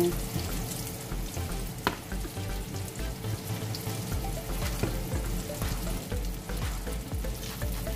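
Shrimp sizzling in hot oil in a nonstick frying pan. A wooden spatula scrapes and taps as the shrimp are lifted out into a bowl, giving a few sharp clicks.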